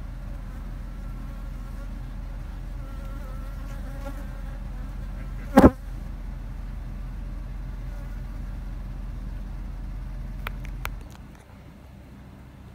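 Steady buzzing of Africanized honeybees (killer bees) around their hive. One loud knock comes about halfway through and a couple of clicks follow near the end, after which the hum drops off.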